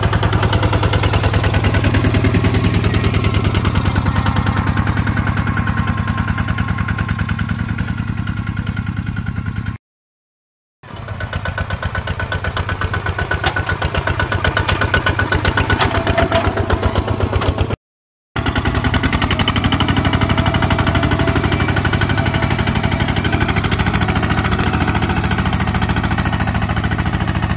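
Two-wheel walking tractor's single-cylinder diesel engine running steadily under load while ploughing, with a rapid, even pulse. The sound cuts out abruptly twice, about ten and eighteen seconds in.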